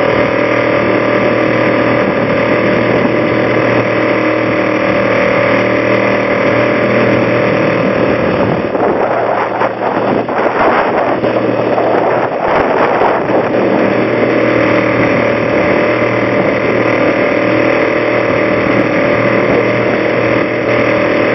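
Boat engine running steadily, heard from on board while the boat is under way. A stretch of rushing wind and water noise rises over it about halfway through.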